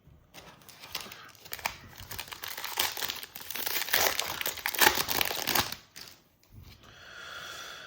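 Panini Prizm WWE trading-card pack wrapper being torn open and crinkled, a dense crackling for about five and a half seconds that then dies down.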